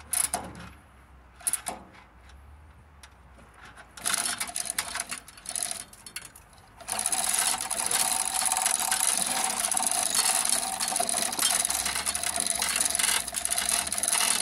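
Engine hoist chain rattling as the pulled engine is lowered: a few clicks, then broken rattling from about four seconds in, turning into a steady, continuous mechanical rattle with a constant tone from about seven seconds in.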